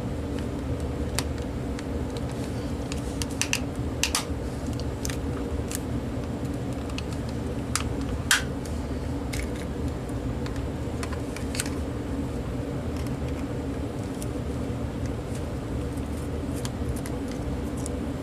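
Scattered small plastic clicks and taps from a Panasonic cordless phone handset being opened up and handled, over a steady low hum.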